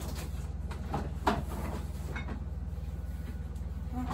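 A few light knocks and clicks of kitchen handling over a steady low hum.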